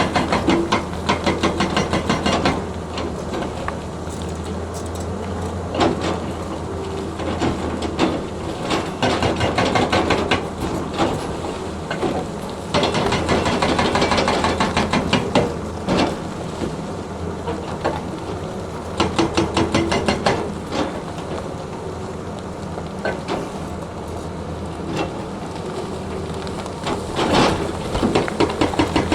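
Excavator's diesel engine running steadily, with repeated stretches of rapid, evenly spaced hammering knocks lasting a couple of seconds each, about five times over.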